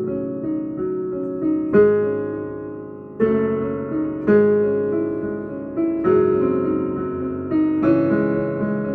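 Piano playing slow chords: a new chord struck every one to two seconds, its notes ringing and fading before the next.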